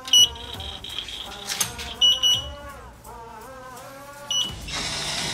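Electronic beeps from a snack vending machine's control board as its buttons are pressed: a longer beep with a held tone about a second in, a few short beeps near two seconds, and one more past four seconds, over background music. A steady hiss sets in near the end.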